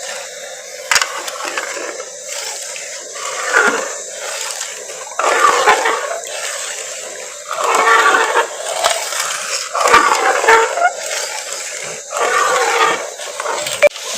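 A spoon stirring sugar into herbal syrup heating in a karahi, with scraping strokes every second or two over a steady sizzle; the spoon knocks sharply against the pan about a second in and again near the end.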